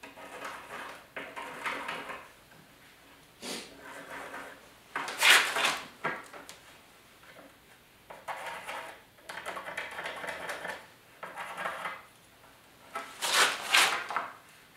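Pencil scratching on particle board and a small metal hinge clinking and knocking against the board as its screw holes are marked out: a string of short scrapes and taps, the loudest about five seconds in and near the end.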